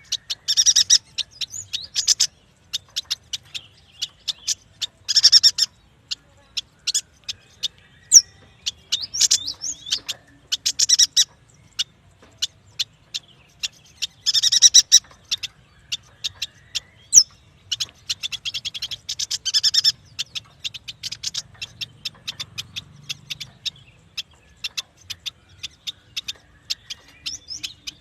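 Yuhina singing: a steady string of sharp, high, very short chips, broken every few seconds by dense chattering runs.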